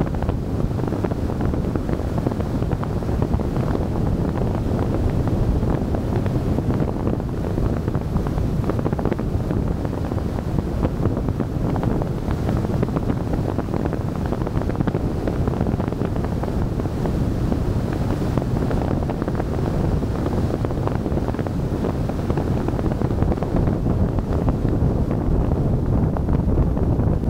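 Steady wind rumble buffeting an outside-mounted camera microphone, mixed with the road and tyre noise of a car driving at speed on the highway.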